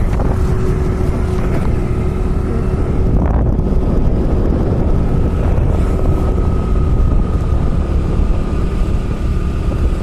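Wind buffeting the microphone on a moving two-wheeler, with the steady drone of the engine and road underneath and a faint constant hum.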